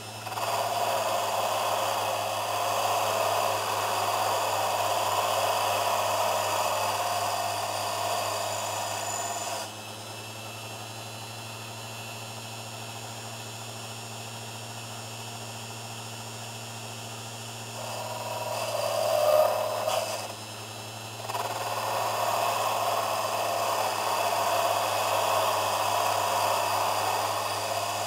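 Small lathe running with a steady motor hum while a tool scrapes against the spinning cast-iron piston blank. The scraping stops about ten seconds in, leaving only the hum, swells louder again around nineteen seconds and then carries on.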